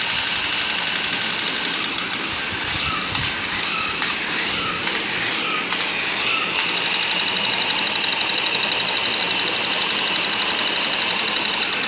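Battery-operated crawling Spider-Man toy running: its small motor and gears make a fast, steady rattle as it crawls. The rattle gets louder about two-thirds of the way in.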